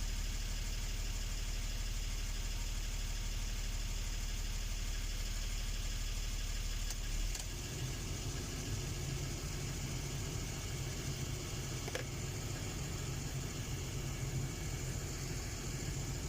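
Toyota Land Cruiser 60's engine idling steadily; about seven seconds in its hum changes and becomes fuller.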